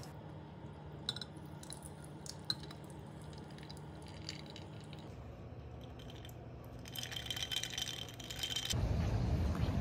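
Ice cubes clinking lightly against a drinking glass as tea is poured in, a few faint clicks, then a short rattle of ice as the glass is picked up.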